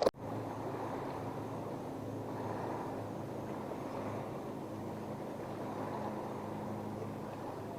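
Motorboat engine running steadily: an even, low drone that neither rises nor falls.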